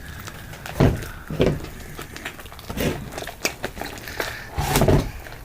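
Fluffy slime being kneaded and squished by hand, giving a handful of irregular wet squishes with faint crackling between them.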